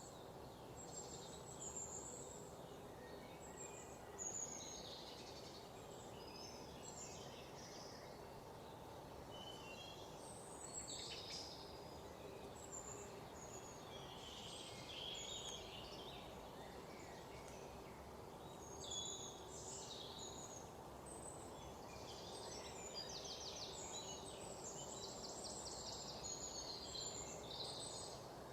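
Forest ambience: several birds chirping and calling over a steady low background rush, with quick trills near the end.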